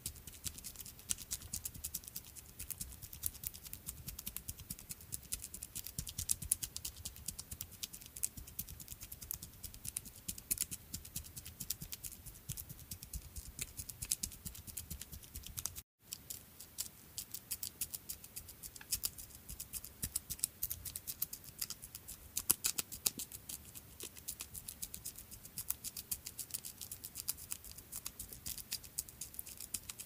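Footsteps of a small creature: a dense, fast run of light ticks and scratches with an irregular rhythm, broken by a momentary gap near the middle.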